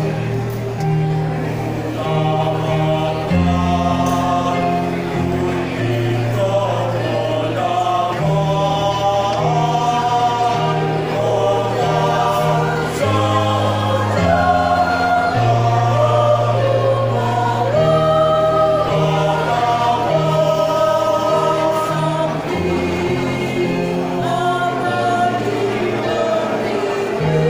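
A choir singing in several parts, sustained chords moving together over a low bass line.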